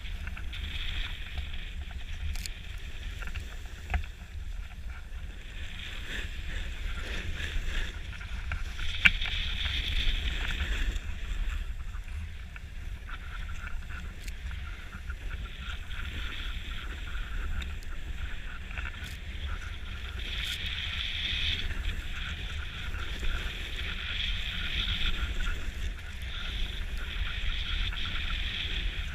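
Skis carving and scraping over groomed snow at speed, a hiss that swells and fades with each turn, over a steady low rumble of wind on the camera's microphone. A couple of sharp knocks break in.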